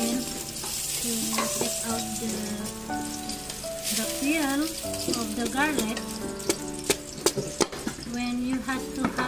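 Background music with held, wavering notes over a steady hiss. In the second half a cleaver knocks sharply on a wooden cutting board several times as garlic is chopped.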